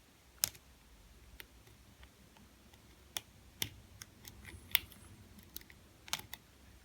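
Lock pick and tension wrench working the pins of a JJ80 challenge lock during single-pin picking: scattered small sharp clicks at irregular intervals, a few of them louder.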